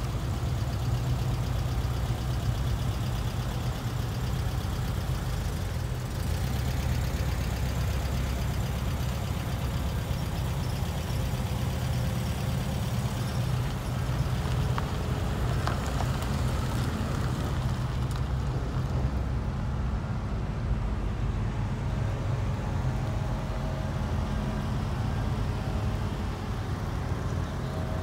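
A slow procession of classic and muscle cars passing one after another at low speed, their engines running steadily at low revs.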